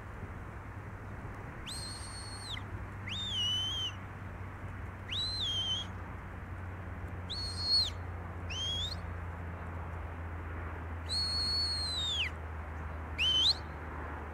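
Shepherd's whistle commands to a Border Collie working sheep. There are about seven short, high whistled blasts with gaps between them: some are held level and drop away at the end, others slide upward. A steady low hum sits underneath.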